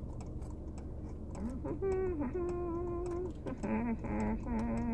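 A woman humming a tune to herself in held, sliding notes, starting about a second and a half in, over faint clicks of packaging being handled.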